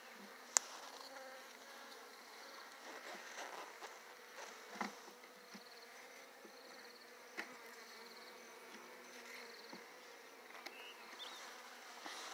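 Honey bees buzzing in a steady hum around an open hive, with a few sharp clicks and knocks of the hive tool and wooden frames against the box, the sharpest about half a second in.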